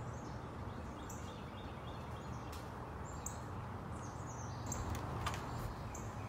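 Small birds chirping in short, high calls every second or so over a steady low background hum, with a few light clicks a little after five seconds.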